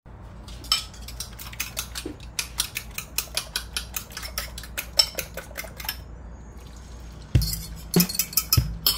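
Eggs being beaten with a metal fork in a ceramic bowl: quick clinks of metal on the bowl, about four to five a second, which stop about six seconds in. Near the end a louder passage with steady low tones comes in.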